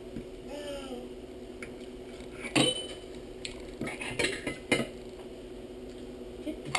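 A drinking cup knocked down hard on a plastic high-chair tray, one sharp knock about two and a half seconds in, followed a second or so later by a few lighter knocks and clatters.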